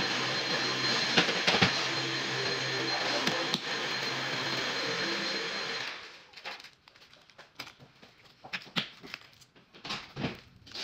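A steady mechanical drone with a constant hum, like a fan or appliance running, cuts off abruptly about six seconds in. After that, slime being handled and stretched gives scattered soft clicks and wet pops.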